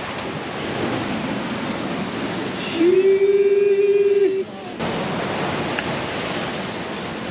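Ocean surf breaking and washing over a reef, a steady rush. About three seconds in, a loud steady held note sounds for about a second and a half over it, then stops.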